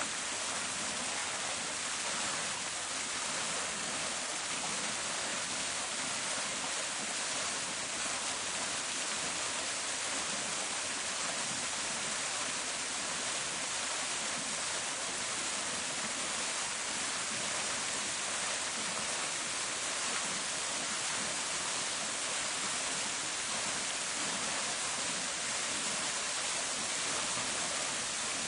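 Park fountain: water falling and splashing into its basin, a steady, even rushing hiss with no pauses.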